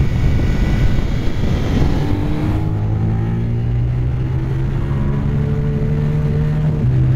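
Motorcycle engine running hard at speed, with a rush of wind noise for the first couple of seconds; then the engine note comes through clearly and climbs slowly in pitch as the bike accelerates.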